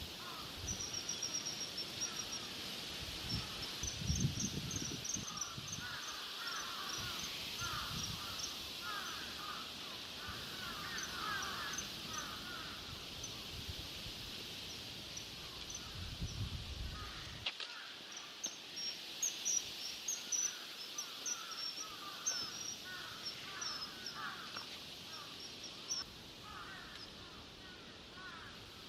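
Female common kingfisher giving runs of short, high, sharp whistled calls, repeated in bursts with a pause partway through. Lower, harsher bird calls and a steady hiss sit behind them.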